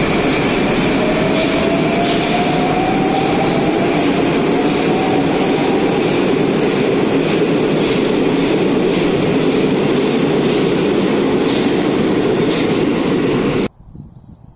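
Rail vehicle running at speed, heard as a loud steady rumble of wheels on track, with a faint whine rising in pitch over the first few seconds. The sound cuts off suddenly near the end.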